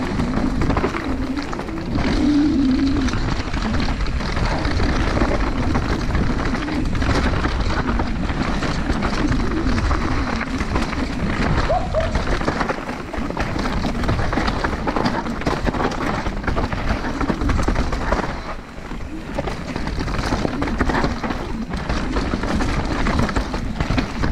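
Mountain bike descending a rough downhill trail at speed: constant wind and tyre rush with frequent clattering knocks from the bike over bumps.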